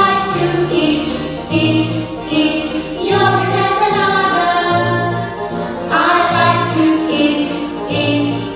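A children's phonics song for the letter sound y: a woman singing a melody over a bouncy backing with a low bass note repeating about once a second.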